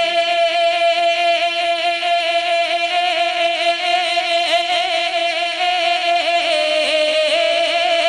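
A male voice singing a naat, holding one long note with a slight waver, without words.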